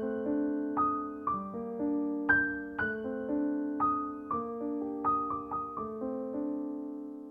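Solo piano background music: single notes struck about twice a second over held lower notes, each fading away, with a brief break near the end before it starts again.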